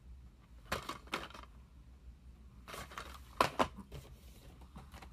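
Plastic DVD cases being handled and set down: several short clacks and scrapes, the loudest about three and a half seconds in.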